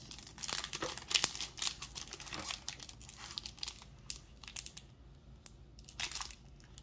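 Foil wrapper of a Pokémon card booster pack crinkling and tearing as it is torn open by hand. A dense run of crackles comes in the first three seconds, sparser crackling follows, and another short flurry comes near the end.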